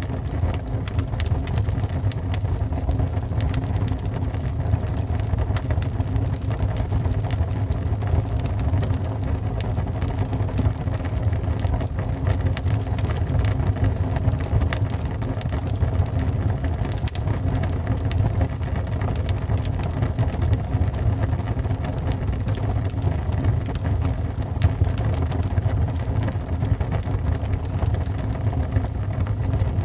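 Wood fire burning in a fireplace: a steady low rumble with frequent sharp crackles and pops throughout.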